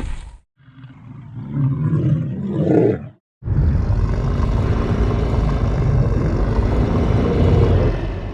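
Giant-monster roar sound effects for Godzilla: a low rumbling growl that builds over about two and a half seconds, then, after a brief gap, one long loud roar lasting about five seconds.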